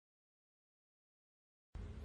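Dead silence, then a faint low hum and hiss come in near the end.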